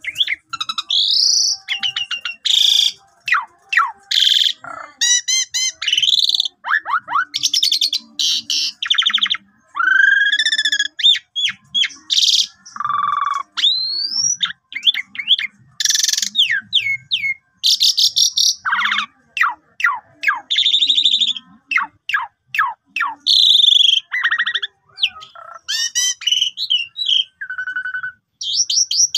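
Asian pied starling (jalak suren) singing a long, varied song. It mixes whistled notes that glide up and down with rapid rattling trills and harsh chattering notes, in short phrases with brief pauses between them.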